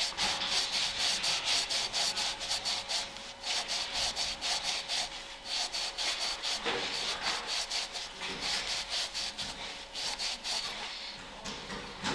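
Abrasive scouring pad scrubbing a metal brake caliper piston by hand: rapid back-and-forth rubbing strokes, several a second, in runs broken by short pauses.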